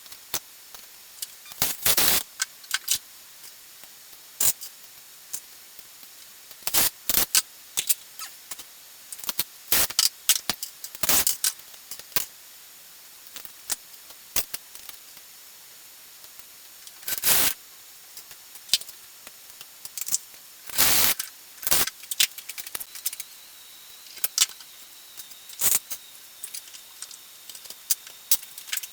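Small metal parts clicking and clattering as they are handled and fitted, in irregular bursts with short pauses between them.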